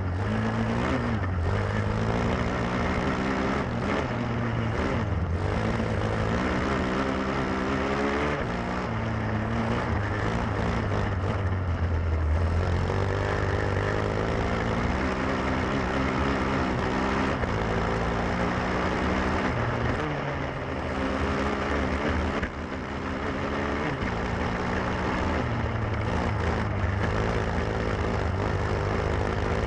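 A grass-track racing kart's Lifan four-stroke engine, heard up close from the kart, revving up and dropping back over and over as the driver accelerates out of corners and lifts for the next, with a short lull about two thirds of the way through.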